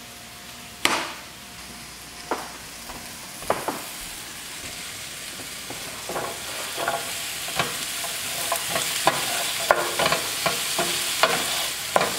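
A few knife chops on a plastic cutting board. Then onions and sliced zucchini sizzle in a frying pan, the hiss swelling as the zucchini goes in. A wooden spatula scrapes and taps against the pan as the vegetables are stirred.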